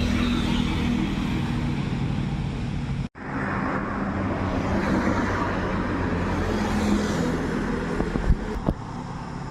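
Road traffic: vehicle engines running and passing by, a steady hum with a brief break about three seconds in and a couple of sharp knocks near the end.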